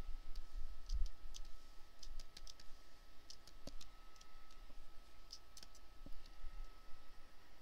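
Computer mouse and keyboard clicking: irregular, scattered clicks as a polygonal lasso selection is clicked out point by point in Photoshop. A faint steady high tone sits underneath.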